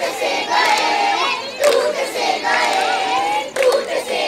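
A group of children singing together in unison, with a few sharp claps cutting in.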